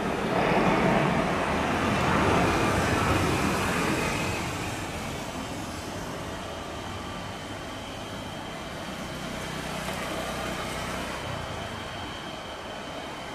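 Boeing 737 jet engines at takeoff thrust during the takeoff roll: a steady, even roar, loudest for the first few seconds and then easing somewhat, with a thin high whine coming in about five seconds in.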